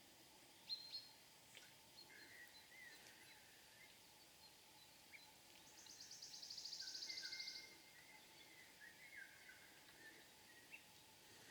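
Faint birdsong: scattered short chirps, and about halfway through a rapid high trill of fast repeated notes lasting nearly two seconds.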